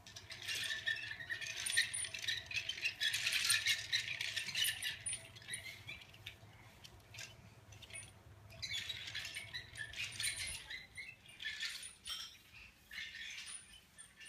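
A plastic toy train clattering and rattling as it is pushed and handled on a hard floor, in bursts: a long stretch at first, then shorter ones.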